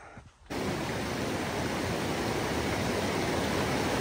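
Fast-flowing stream: a steady, even rush of water that starts abruptly about half a second in.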